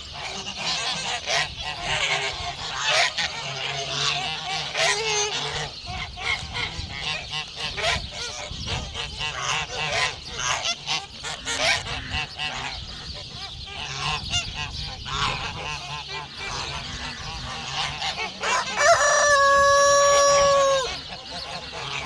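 A flock of white and grey domestic geese honking, with many short, overlapping calls throughout. Near the end, a single loud call is held on one pitch for about two seconds; it is the loudest sound here.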